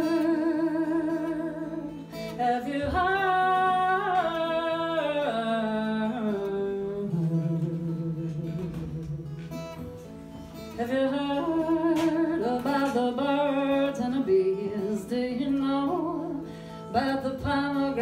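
A woman singing a melody that carries no recognisable words, with a steel-string acoustic guitar accompanying her.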